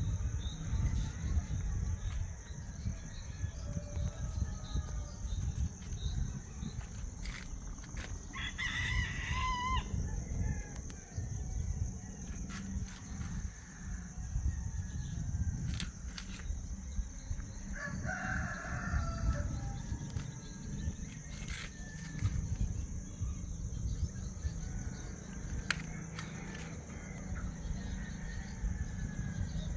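Distant roosters crowing, two crows about 9 s and 18 s in, over a steady low rumble and a thin high hiss.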